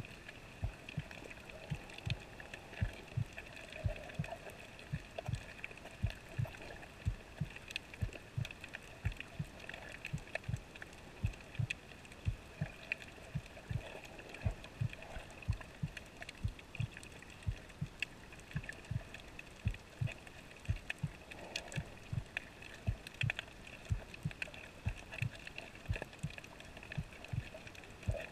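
Muffled underwater sound picked up by a camera in a waterproof housing while snorkeling: soft low thumps, irregular at about two or three a second, from the swimmer's movement and water pushing against the housing, over a faint steady hiss.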